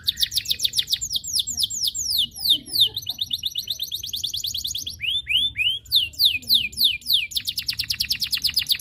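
Domestic canary singing a long, unbroken song of high whistled notes. Runs of quick notes sweep downward one after another and alternate with fast trills, with three slower swooping notes about five seconds in. It ends in a very fast trill.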